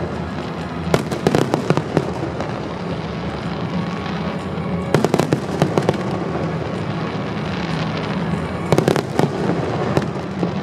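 Aerial fireworks shells bursting and crackling, with clusters of sharp cracks about a second in, around five seconds in and again near nine seconds, over a steady rumble from the display. Music plays underneath.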